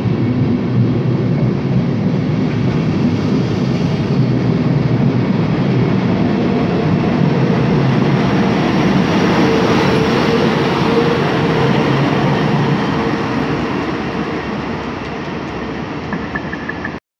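An n-Wagen (Silberling) push-pull train with a DB class 111 electric locomotive pulls out past the listener with a loud, continuous rumble of wheels and running gear. A steady hum rises from the locomotive as it passes about eight to twelve seconds in. The sound then fades gradually as the train moves away.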